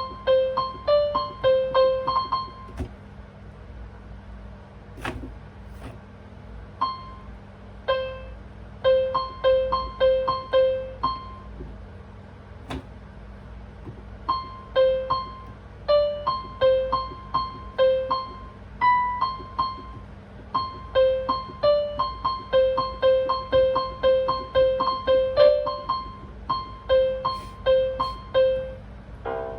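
Piano played by a beginner: a slow single-note melody that mostly repeats one note, with a few higher notes. It is played in short phrases, stopping twice for a few seconds, and there are a couple of faint knocks during the stops.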